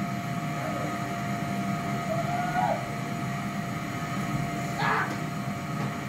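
Red canister vacuum cleaner running steadily on carpet, its motor giving a constant whine over a low hum, with a brief wavering tone about two seconds in.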